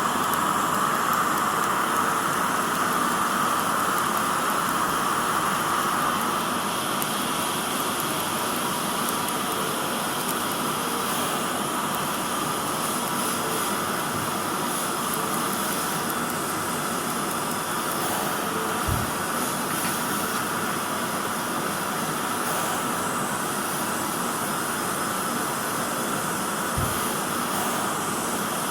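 Dental equipment running steadily in a surgery, a continuous hiss of the kind made by the suction and drill during treatment. It eases slightly after about six seconds, with two small clicks in the second half.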